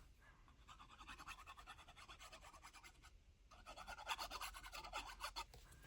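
Faint, quick scratchy rubbing on paper during hand papercraft work, getting a little stronger about halfway through.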